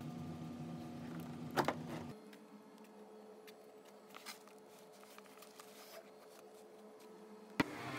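Door knob turned with a couple of sharp latch clicks about a second and a half in, over a faint steady hum. This is followed by quiet handling of a fabric carry bag on a shelf, with a few small ticks and a sharp click near the end.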